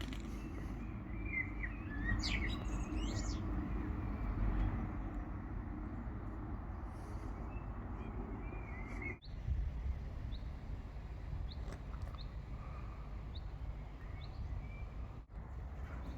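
Small birds chirping and calling, with a few quick warbled phrases early on, then a run of short, evenly spaced high chirps, over a steady low outdoor rumble. The sound cuts out briefly twice, about nine seconds in and near the end.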